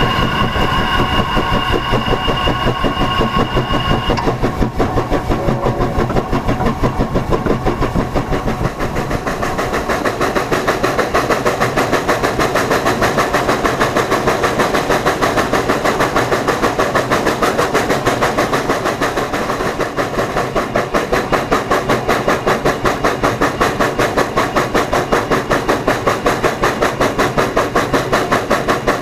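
Exhaust chuffing from narrow-gauge steam locomotive No. 463, a K-27 2-8-2, working along the line in a quick, regular beat. A steady high tone sounds over it at the start and cuts off about four seconds in.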